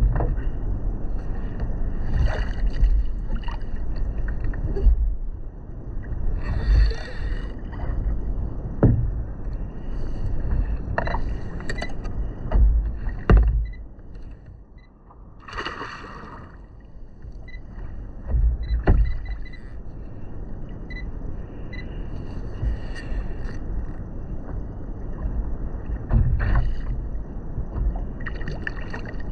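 Sea water sloshing and slapping against a fishing kayak's hull as it rocks on the swell, with short knocks and splashes every couple of seconds and a brief lull about halfway through.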